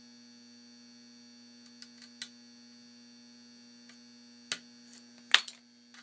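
Scattered sharp metallic clicks as a hook pick works the pins of a Euro cylinder lock, a few light ones early and the loudest a little past five seconds in, over a steady electrical hum.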